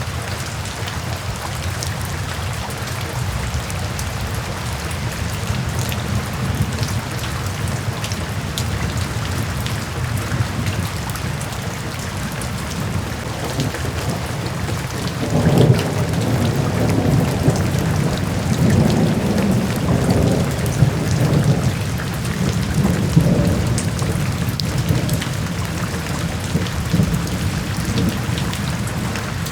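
Steady heavy rain, with thunder rumbling in from about halfway through and swelling several times.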